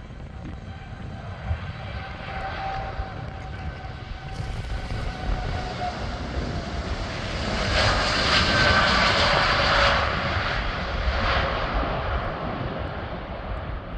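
Jet engines of a Boeing 787 Dreamliner at take-off thrust on its roll down the runway: a steady rumble with a thin whine. It grows to its loudest about eight to ten seconds in as the plane passes, then fades. Wind rumbles on the microphone underneath.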